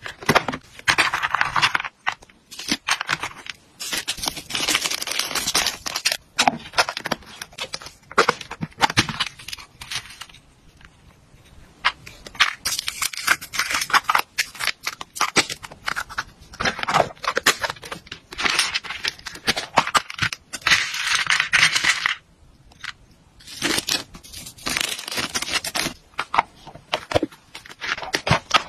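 Hands handling plastic food containers and small hard hamster treats: snap-lock lid clips clicking, plastic lids and jars tapping and scraping, and dry pellets rattling, in a run of short clicks and rustles broken by two brief lulls.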